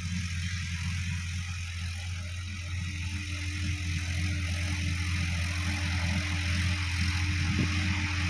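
Sonalika DI-50 RX tractor's diesel engine running steadily as it ploughs dry ground, growing gradually louder as it comes closer.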